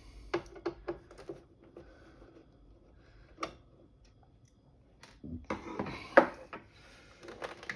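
Small clicks and rattles of a screwdriver and screws being worked out of a plastic monitor back casing. There are a few scattered clicks at first, then a busier run of clicking and rattling in the second half, with one sharp knock a little after six seconds.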